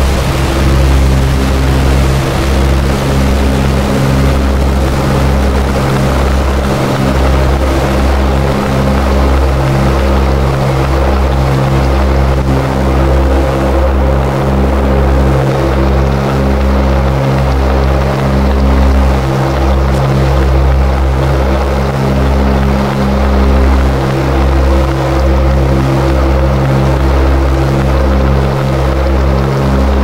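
Experimental noise music: a loud, dense low drone of several stacked tones that stutters and pulses irregularly, over a steady wash of hiss.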